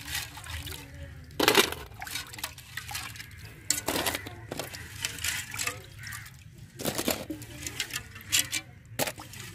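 Hands washing cleaned crab pieces in a steel bowl of water: irregular splashing and sloshing, with knocks as pieces are set down on a steel plate.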